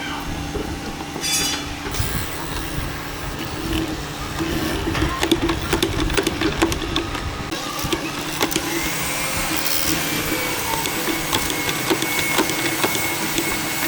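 Workshop machine noise: a steady low hum with scattered knocks and clicks, and a thin high whine that sets in about nine seconds in.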